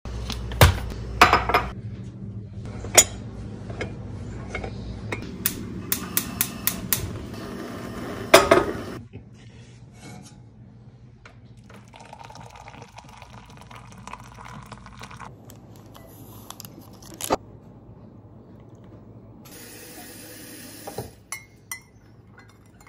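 Kitchen sounds of coffee being made: mugs and metal spoons clinking sharply many times, then coffee poured into a ceramic mug with a steady hiss about halfway through, and a spoon stirring and tapping against the mug near the end.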